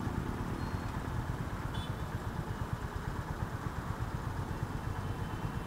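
Motorcycle engine idling at a standstill, a steady low sound with an even fast pulse.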